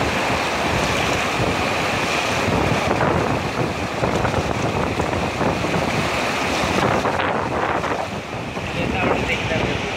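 Muddy floodwater of a river in spate rushing steadily across its whole channel, with wind buffeting the microphone.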